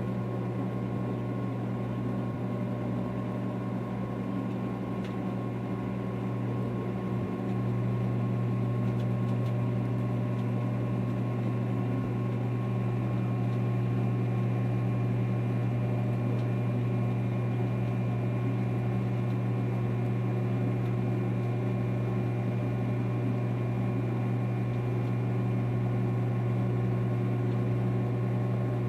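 Microwave oven running with a steady electrical hum while heating pork rinds; the hum gets slightly louder about seven seconds in.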